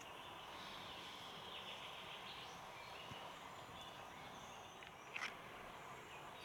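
Quiet outdoor ambience: a steady faint hiss with scattered small bird chirps, and one brief, slightly louder sound about five seconds in.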